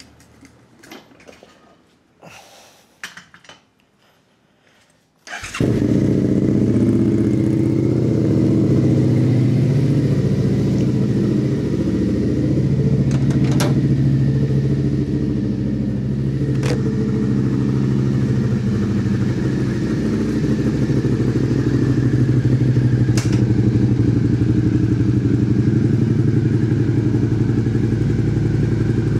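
Suzuki SV650's V-twin engine, on a MIVV replica slip-on muffler with the catalytic converter deleted, starts suddenly about five seconds in and then idles steadily. A few light clicks and knocks come before it starts, and a few sharp ticks over the running engine.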